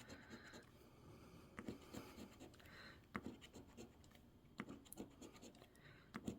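Faint coin scratching the coating off an instant scratch-card lottery ticket, in short scattered scrapes.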